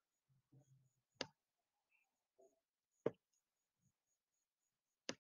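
Three sharp computer-mouse clicks, about two seconds apart, over near silence.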